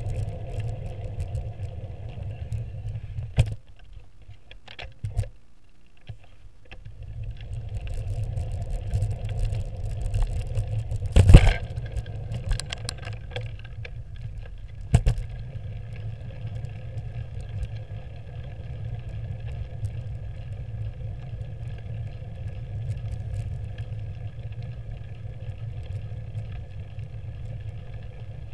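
Low, steady rumble of wind and road noise on a camera mounted on a moving bicycle, easing off for a few seconds early on, with a few sharp knocks as the bike jolts, the loudest about eleven seconds in.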